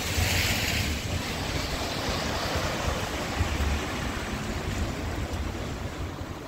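Car tyres hissing on rain-wet asphalt as a car goes by, loudest in the first second, over a steady low rumble of wind on the microphone.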